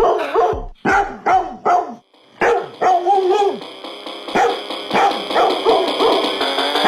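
Dog barks sampled and chopped into a phonk track, repeating in quick rhythmic yelps with the bass and kick dropped out. A steady synth chord comes in about two seconds in, under the continuing barks.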